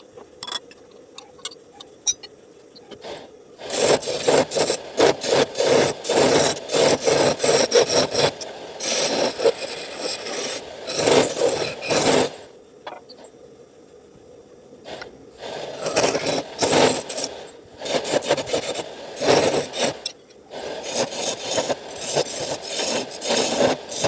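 A hand tool rasping or sawing wood in quick repeated strokes, in two long runs with a pause of a few seconds between them.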